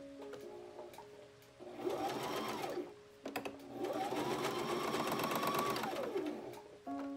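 Brother XM2701 electric sewing machine stitching in two runs: a short one about two seconds in, then a longer one of about three seconds. Each time the motor's pitch rises as it speeds up and falls as it slows to a stop. Quiet background music plays underneath.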